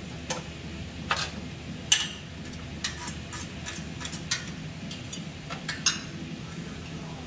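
Irregular metal clicks and clinks of hand work on the exhaust header hardware in an engine bay: a dozen or so sharp taps with uneven gaps, the loudest about two seconds in.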